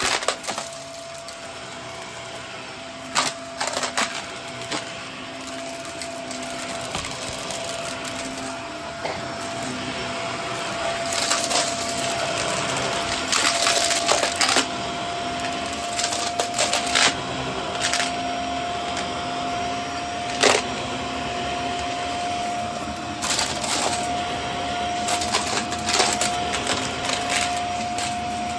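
Vacuum cleaner running with a steady whine that creeps slightly higher in pitch, picking up debris that clicks and rattles through it, with one sharp knock about two-thirds of the way through.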